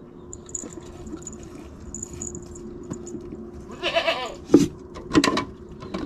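A goat bleats once, briefly, about four seconds in, followed by a few sharp knocks.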